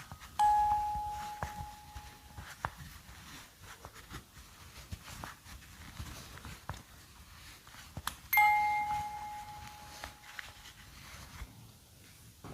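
Bell-like chime notes from an old musical doll's toy sound mechanism, sounding only twice: one about half a second in and another about eight seconds in, each ringing out and slowly fading. Faint clicks come between the notes.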